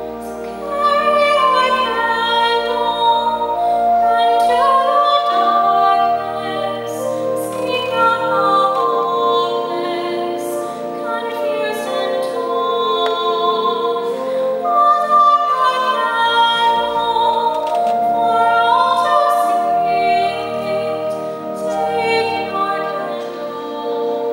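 A woman singing a slow gospel song solo with vibrato, accompanied by a pipe organ holding sustained chords.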